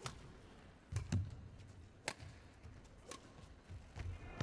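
Badminton rally: rackets strike the shuttlecock with sharp cracks about once a second, with dull thuds of the players' footwork on the court between them.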